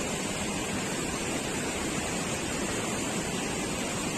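Steady rush of flowing river water, an even hiss without pauses or distinct events.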